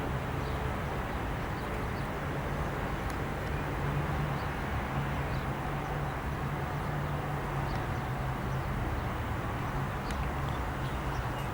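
Steady outdoor background noise with a low, even drone and a few faint high ticks; nothing rises or passes.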